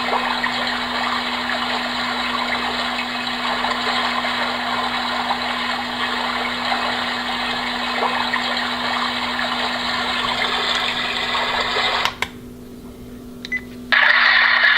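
Homedics SoundSpa white noise machine playing its brook setting: a steady rushing running-water hiss with a low hum under it. About twelve seconds in it cuts off, leaving a quieter stretch with a couple of clicks, and near the end a brighter water hiss starts again.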